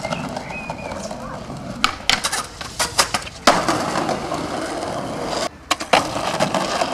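Skateboard wheels rolling on pavement, broken by sharp clacks of the board hitting the ground, the loudest landing about three and a half seconds in.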